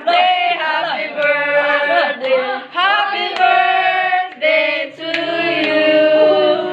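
Voices singing a melody, several pitched lines at once, without a break.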